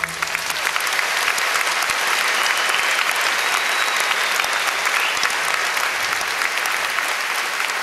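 Audience applauding at the end of a song, a dense, steady clapping that sets in just as the band's music stops.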